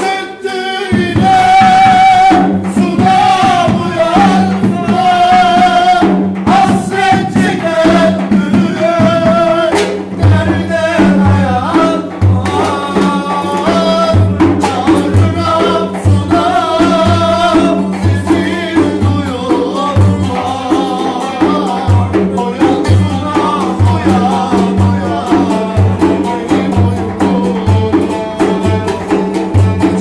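A Turkish folk dance tune (oyun havası) with a man singing, accompanied by a plucked cümbüş and a hand-struck frame drum keeping a steady beat.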